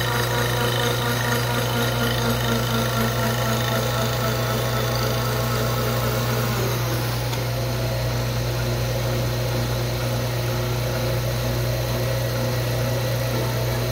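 Milling machine running, its cutter head milling a strip of wooden piano-key stock: a steady machine hum with a higher cutting sound on top. About seven seconds in, the higher part drops away and the hum continues.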